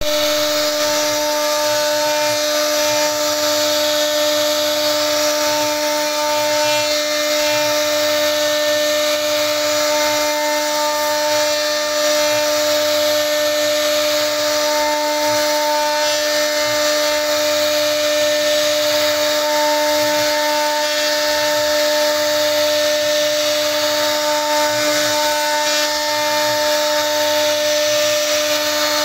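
CNC router spindle carving a relief pattern into a wooden panel: a steady whine over a constant hiss of the bit cutting wood.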